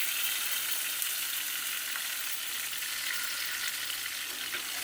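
Marinated vegetables sizzling steadily in hot oil in a frying pan.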